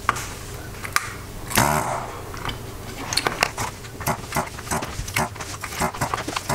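Handheld desoldering gun working on circuit-board solder pads: a steady low hum under many small clicks and crackles, with a short slurping burst about one and a half seconds in and the crackling thickening in the second half.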